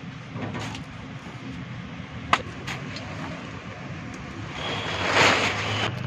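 A motor idling steadily, a low even hum, with one sharp click about two seconds in and a swelling rush of hiss near the end.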